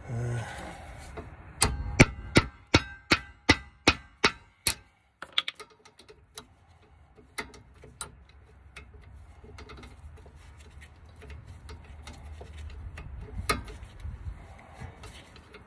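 Wrench and hand tools working a rear brake caliper bolt: a quick run of about nine sharp metallic clicks, evenly spaced and fading, then quieter scattered clicks and one louder click near the end.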